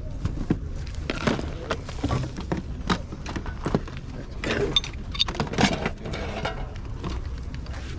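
Light clinking and rattling of rhinestone costume jewelry and stone pieces being picked up and handled, as a scatter of short clicks over a steady low rumble.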